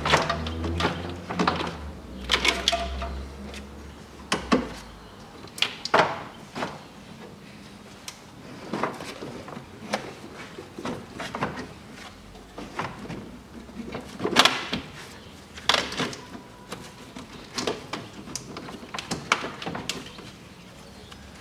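Irregular plastic clicks and knocks as a car's radiator fan shroud is unlatched and worked loose by hand. A low hum sounds for the first few seconds, then stops.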